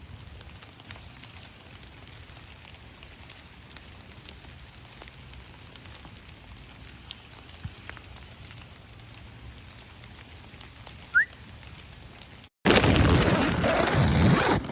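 Rain falling steadily, a faint even hiss with scattered small patters. Near the end the sound cuts out for an instant, and a much louder rushing noise follows for about two seconds.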